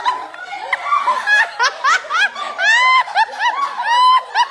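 High-pitched laughter from several women and children: mixed excited voices at first, then a rapid run of 'ha-ha-ha' laughs at about three or four a second from about a second and a half in.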